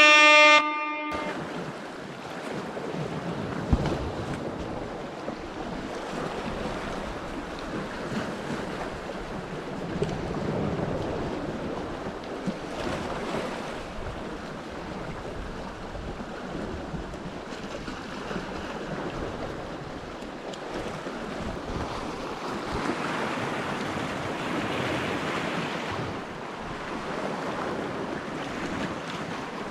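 Sea surf washing over a rocky shoreline in a steady wash with slow swells, with wind on the microphone. It opens with the tail of a loud horn-like sound effect that cuts off about a second in.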